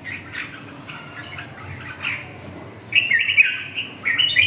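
Caged red-whiskered bulbuls singing: softer phrases at first, then loud, quick song phrases from about three seconds in.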